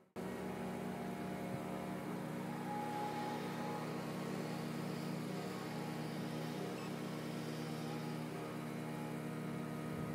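Steady engine drone of machinery at work: a New Holland skid steer loader's diesel running as it drives about, together with the small portable generator that powers the compost screener. It starts abruptly just after a brief drop-out at the very beginning.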